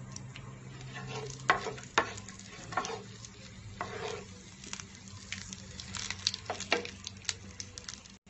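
Whole cumin seeds, dried red chillies and a bay leaf sizzling and crackling in hot mustard oil, the tempering (phoron) for a curry, in a non-stick frying pan. A wooden spatula stirs and scrapes through the oil with several louder strokes.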